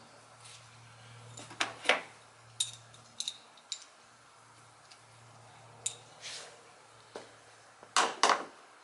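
Metal parts and hand tools being handled: a scattered series of sharp clinks and knocks, loudest about two seconds in and twice near the end.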